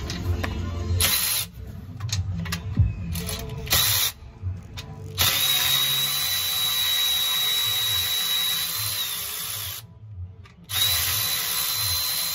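Cordless power ratchet spinning out bolts: a couple of short bursts, then a run of about five seconds with a steady high whine, a brief stop, and another run.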